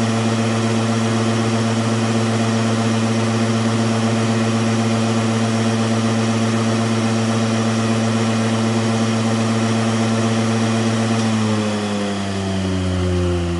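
Hematocrit centrifuge, rewired with a new thyristor speed control, spinning at speed with a steady hum. About 11.5 s in its pitch starts falling as the rotor winds down at the end of the test run.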